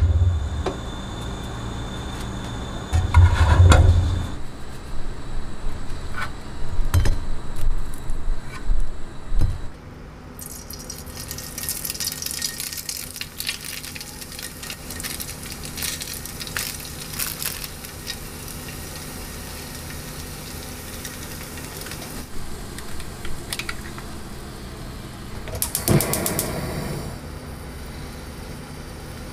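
Kitchen handling sounds at a gas stove with the burner still unlit, so nothing sizzles. Heavy knocks of a nonstick frying pan on the grate in the first few seconds, then plastic packaging crinkling with light clicks as crab sticks are shredded into the pan. A short clatter comes near the end, over a steady low hum.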